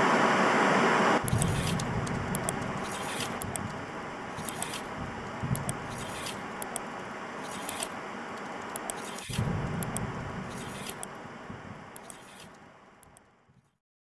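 Channel-intro sound bed over an animated logo: a loud rush of noise in the first second, then a noisy steady texture with short hissing hits about once a second and a few low thuds, fading out before the end.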